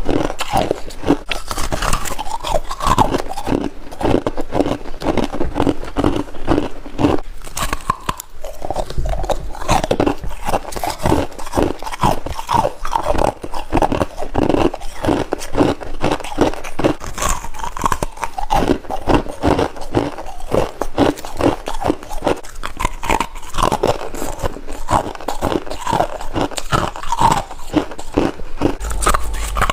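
Close-up crunching bites and chewing of soft white freezer frost, with rapid crunches several a second and a brief lull about eight seconds in.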